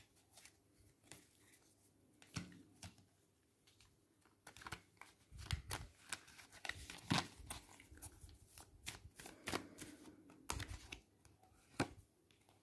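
Tarot cards being shuffled and handled: faint, irregular rustles and clicks, sparse at first and busiest from about four seconds in until near the end.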